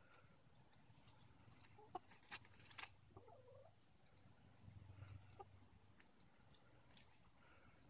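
Easter Egger hens pecking and scratching in dry fallen leaves: a burst of crisp rustles and clicks about two seconds in, followed by a soft, low hen cluck, then a few faint pecks.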